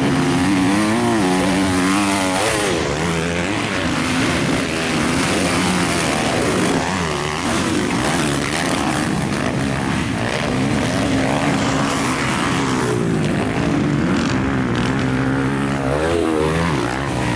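Motocross bikes racing on the track, their engines revving hard, the pitch rising and falling again and again with the throttle.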